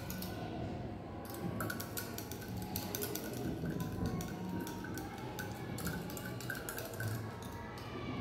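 Glass clinking and tapping in quick, irregular clicks as copper sulfate solution is mixed in a test tube, over quiet background music.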